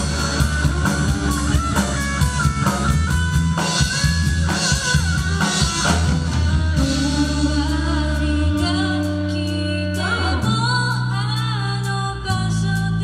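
Live rock-pop band playing an instrumental passage on drum kit and guitars, with the drums busiest in the first half. In the last few seconds a woman's voice comes in singing over the band.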